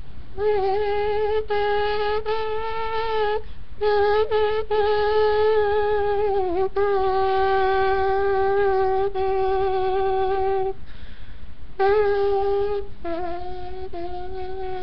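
A trumpet sound holding a series of long notes, most of them on nearly the same pitch, with short breaks between them; the last notes near the end step a little lower.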